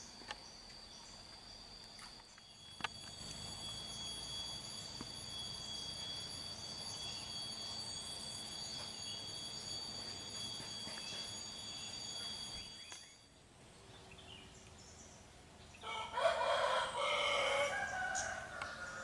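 A steady, high-pitched insect drone starts about two seconds in and cuts off suddenly about two-thirds of the way through. Near the end, a loud, harsh, fowl-like bird call rings out for about two seconds.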